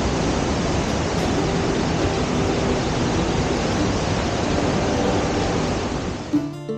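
Steady rushing of a waterfall and the rocky stream below it. Near the end this gives way to music with string instruments.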